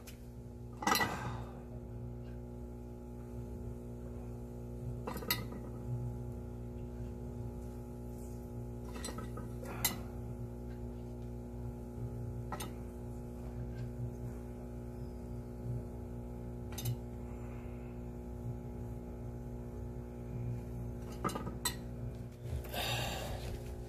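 Metal meat hooks clinking against a ceramic plate and the rim of an earthenware jar as grilled pieces are lifted out and set down. A scattered handful of single clinks, with a cluster near the end, over a steady low hum.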